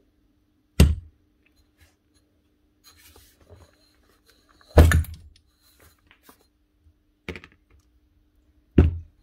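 Four hard knocks on a workbench as hammer parts and tools are handled and set down during disassembly, at about one, five, seven and nine seconds in. The first two are the loudest, with a little rustling between them.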